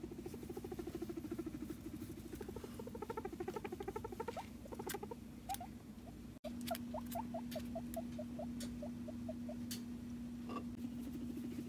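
Guinea pig vocalizing with a fast, low pulsing call. After a cut about halfway through, a steady low hum runs under a row of short, higher squeaks, about four a second, with scattered sharp clicks.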